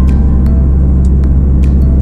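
Steady low rumble of a car driving, with background music of held notes over it.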